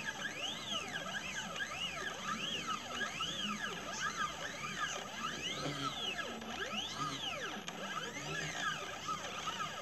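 Stepper motors of a CNC 2418 laser engraver whining in overlapping rising-and-falling glides, about one or two a second, as the laser head speeds up and slows down along the curves of an engraved pattern.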